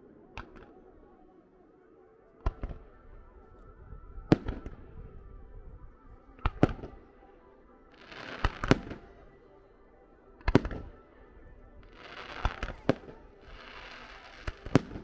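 Fireworks going off: sharp bangs every second or two, some in quick pairs, with bursts of crackling in the middle and near the end.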